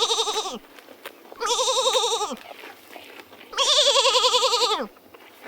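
Goat bleating three times in high, quavering calls, each wavering fast in pitch and dropping off at the end; the third call is the longest and loudest.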